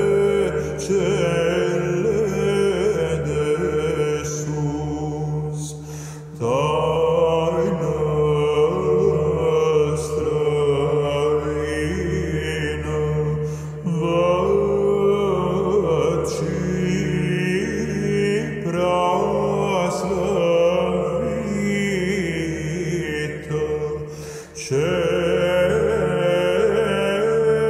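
Male Byzantine chant group singing a melismatic hymn in Romanian in the first mode, a melody held over a steady low drone (ison). The singing breaks off briefly about six seconds in and again near the end.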